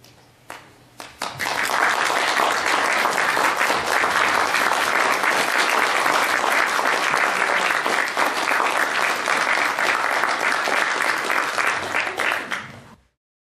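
Audience applauding: a few first claps, then full applause from just over a second in, stopping abruptly near the end.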